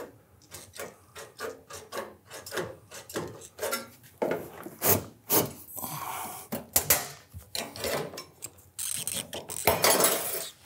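Aviation snips cutting a vertical tab off a sheet-metal ridge cap flashing: a run of short cuts with the metal scraping as the blades close, loudest about halfway through and again near the end.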